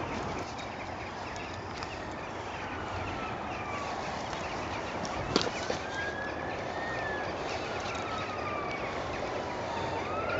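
A distant siren wailing slowly up and down in pitch over steady outdoor background noise, with one sharp click about halfway through.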